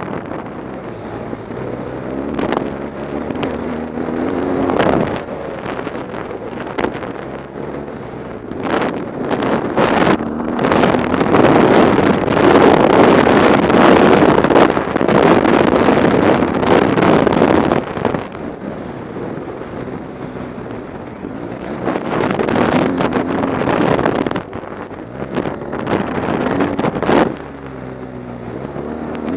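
BMW R 1200 GS Adventure's boxer twin engine revving up and down under throttle at speed, heard through heavy wind noise on the microphone. Scattered sharp knocks come from the rough gravel surface, and the wind and engine are loudest through the middle of the stretch.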